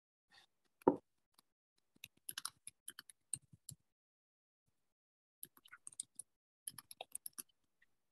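Computer keyboard typing in two short runs of quick key clicks, with a single thump about a second in.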